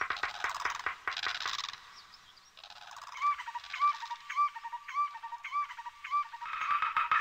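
Small birds chirping: a dense chattering for the first couple of seconds, then a short call repeated about twice a second.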